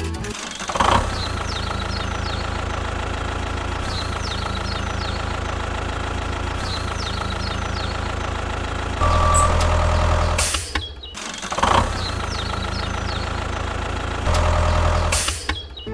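Engine idling with a steady low rumble and knock, getting louder for a second or two about nine seconds in and again near the end.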